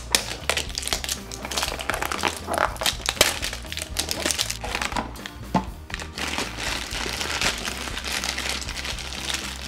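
Crinkling and crackling of a toy blind box being opened and its foil inner bag crumpled open by hand, over steady background music.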